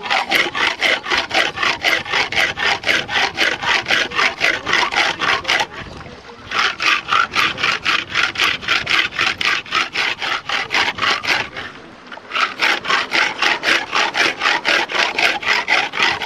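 A tin can rubbed lid-down back and forth on a flat rock, a rhythmic scraping of about four strokes a second in three bouts, with short pauses about six and twelve seconds in. The rubbing grinds through the rim seam of the lid to open the can without an opener.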